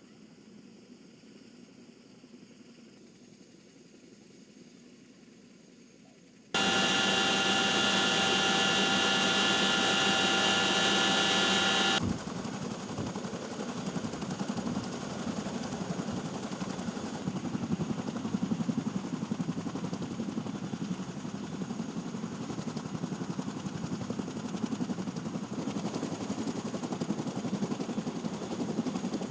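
Helicopter noise across cuts in the footage. It is faint at first; about six seconds in, a loud steady high whine with engine drone starts, then cuts off suddenly near twelve seconds into a fast, even rotor chop that runs on.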